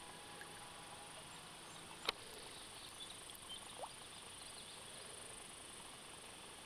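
Quiet outdoor background: a faint steady high-pitched hiss, with one sharp click about two seconds in and a brief faint chirp near four seconds.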